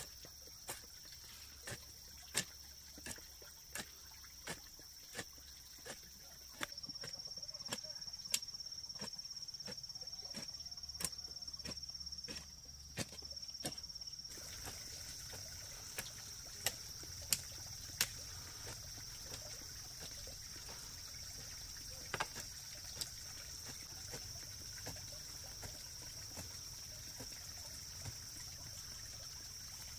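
Hoe blade striking and chopping into soil in short, sharp strokes, at first in a steady rhythm of about one every 0.7 seconds, then more irregular, over a steady high drone of insects.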